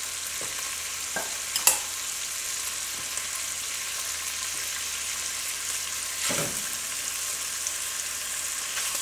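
Diced bacon sizzling in hot sausage grease in a pot, a steady frying hiss. A sharp click comes about a second and a half in, and a brief knock about six seconds in.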